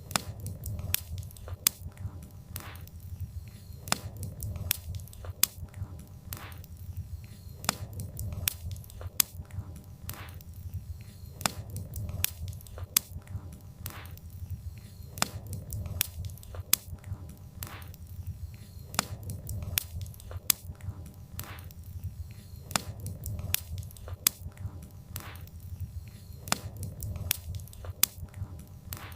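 Wood fire crackling: irregular sharp pops and snaps, several a second, over a steady low rumble of the burning logs.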